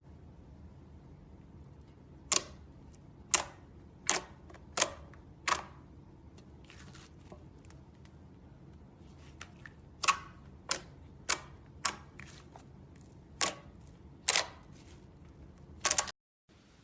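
A series of about a dozen sharp, crisp clicks or snaps at irregular intervals over a faint low hum.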